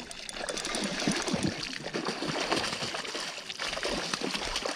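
A hooked sea-run trout splashing and thrashing at the water's surface close to the boat while it is played on a spinning rod, in irregular bursts of splashing.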